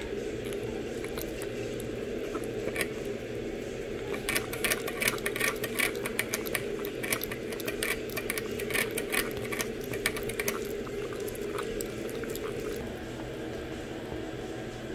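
A Shih Tzu puppy drinking from a hanging water bottle's metal sipper tube: a rapid run of clicks and ticks starting about four seconds in and stopping about ten and a half seconds in, over a steady low hum.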